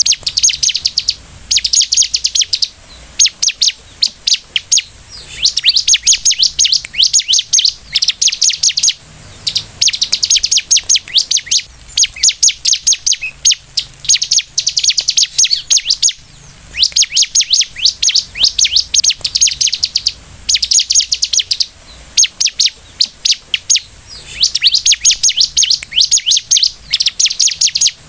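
Bar-winged prinia (ciblek) singing in full voice: fast, high-pitched rattling trills of rapidly repeated notes, delivered in phrases of one to two seconds with short pauses between.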